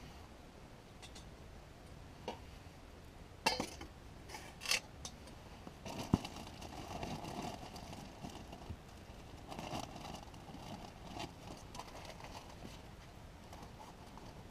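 A few light metallic clinks of a camp cook pot and lid being handled, then soft, irregular rustling and crinkling of a plastic food bag being handled.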